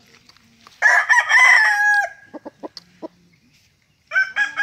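A rooster crows, a call of over a second that ends on a held note. A few short low clucks follow, and a second crow begins near the end.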